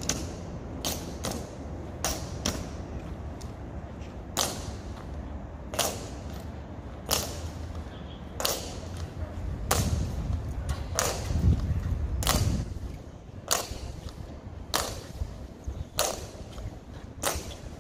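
Honor guards' boots striking the pavement in a slow, even ceremonial march, one sharp step about every 1.3 seconds. A low rumble swells and fades around the middle.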